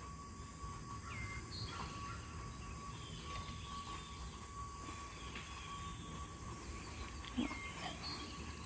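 Faint rural ambience: a steady insect drone with a few short bird chirps, and one brief low sound shortly before the end.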